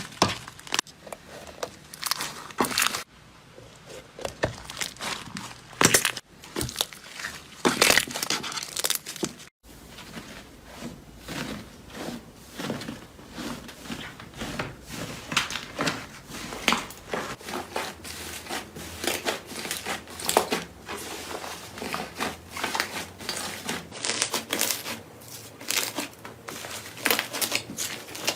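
Slime being squeezed and worked by hand, giving dense, irregular crackling and crinkling. The sound drops out for a moment about nine and a half seconds in.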